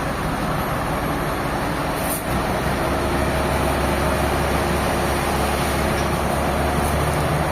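Sawmill machinery running steadily: a continuous engine hum with a noisy mechanical whir. It dips briefly about two seconds in, after which the low hum is stronger.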